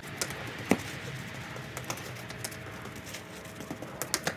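Running footsteps in trainers on patio paving slabs: scattered light slaps, a sharper one a little under a second in and a quick cluster of steps near the end.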